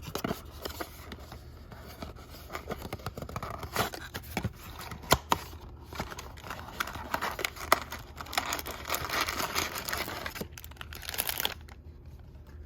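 Plastic wrapping of a trading-card blaster box and its packs being torn open and crinkled, with many sharp crackles; the crinkling stops about a second before the end.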